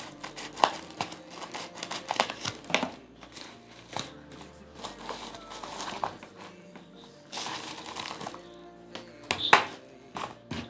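Crinkling and rustling of a plastic mailer bag and bubble wrap being cut open and handled, with sharp snips and clicks in the first few seconds, over steady background music.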